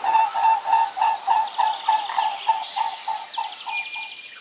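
A regular series of short animal calls, about three a second, growing fainter until they stop near the end, with fainter high chirps over them.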